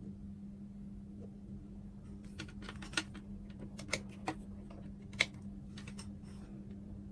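Irregular small clicks and taps from the multimeter probes and the laptop adapter's plug being handled, with the sharpest ones about three and five seconds in, over a steady low hum.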